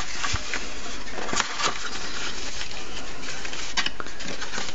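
Cardboard phone box and its inner tray being handled and opened: a few light clicks and taps over a steady hiss.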